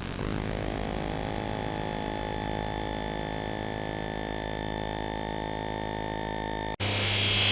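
Synthesized sci-fi hum: a steady electronic drone made of many held tones. Near the end it cuts off abruptly and a louder, noisier effect comes in, swelling in level.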